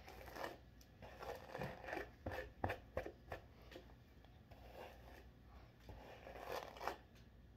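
Hairbrush dragged through long hair, a string of short, faint brushing and rustling strokes.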